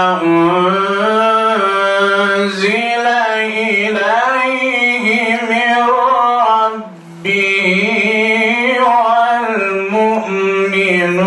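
A male qari reciting the Quran in the melodic tajweed style, drawing out long held notes that waver and ornament in pitch. He pauses briefly for breath about seven seconds in, then carries on.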